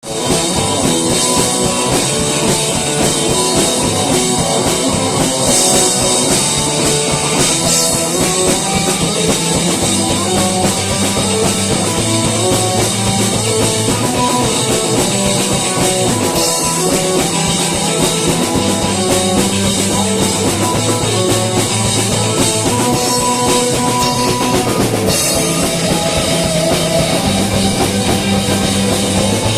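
Rock music with a driving drum kit, bass and guitar.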